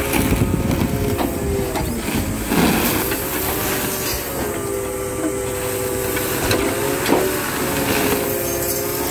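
Hydraulic orange-peel grapple of a scrap material handler loading steel turnings into a steel truck bed. A steady machine whine that shifts slightly in pitch runs under metallic clinks and knocks from the swarf and grapple, with a crunch of falling scrap about two and a half seconds in.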